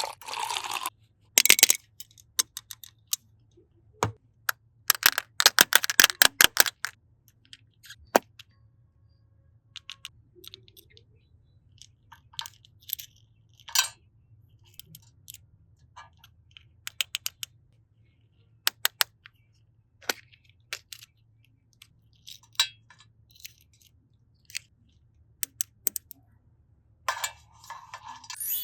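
Scattered sharp clicks and taps of small hard objects being handled, with a quick run of rapid clicking a few seconds in and a brief rustling burst near the end, over a faint low hum.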